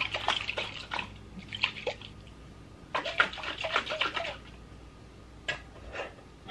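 Liquid sloshing in a handheld container in several short bursts, with light knocks and clicks.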